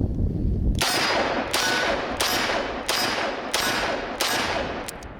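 Smith & Wesson Model 19 revolver fired six times in steady succession, a shot about every 0.7 seconds, each with a brief ringing decay.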